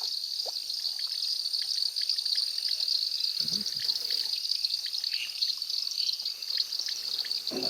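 Night-time chorus of crickets and other insects from the riverside forest: a steady, high-pitched, dense trilling. A short low sound comes about three and a half seconds in.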